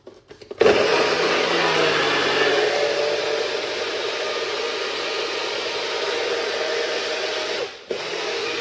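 Countertop blender running at full speed, blending a berry smoothie, with a steady motor note under the whir of the blades. It starts about half a second in, cuts out for a moment near the end and starts again.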